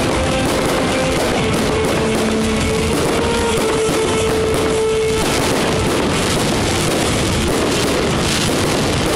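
Loud amplified music with long held notes, mixed with the crackle and pops of aerial fireworks bursting.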